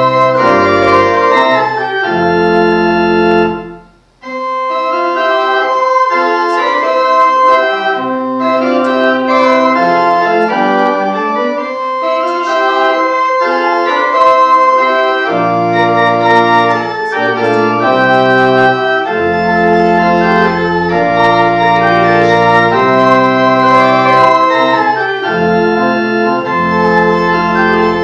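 Church organ playing a hymn tune in sustained chords that change every second or so, with a short break about four seconds in.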